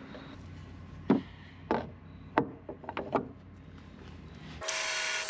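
A wooden drilling jig knocked into place against a fiberglass hull: several sharp wooden knocks and taps. Near the end, a loud high-pitched whine starts and stops abruptly, lasting about a second.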